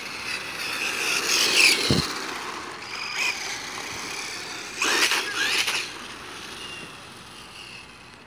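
Traxxas Stampede RC monster truck with a 3660-size electric motor driving on pavement: a high motor and gear whine that rises and falls with the throttle over tyre noise on the road. It is loudest as it speeds up about a second and a half in and again about five seconds in, then fades as it drives off.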